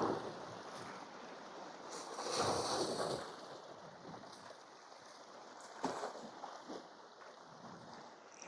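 Sea waves washing against shore rocks, one wash swelling about two seconds in, with a short knock near six seconds.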